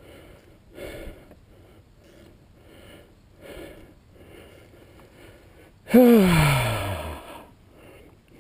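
A man breathing hard in short regular breaths, close to the microphone, then about six seconds in a loud groaning sigh that falls in pitch over about a second.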